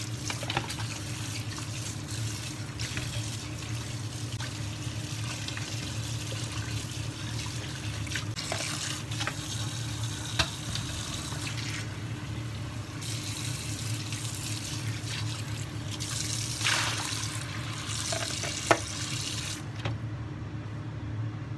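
Tap water running into a sink over boiled pork bones in a plastic colander as they are rinsed by hand, with a few sharp knocks. The running water thins out near the end.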